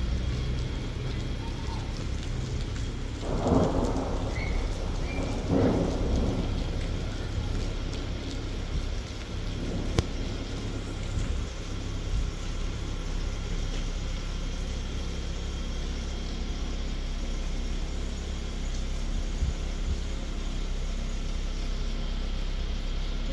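Steady rain hiss over a low rumble, with two brief louder swells a few seconds in.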